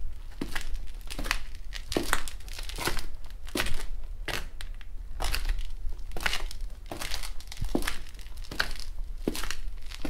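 Hard-heeled shoes walking at a steady pace on dusty concrete, a little more than one step a second. Each step is a sharp heel click with a short gritty scrape.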